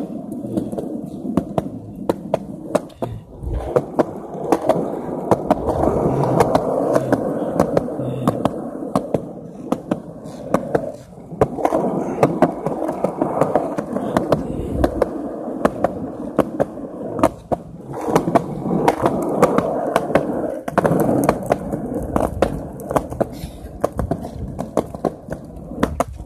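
Hard wheels rolling over pavement: a steady rumble with frequent sharp clicks, dipping briefly a few times.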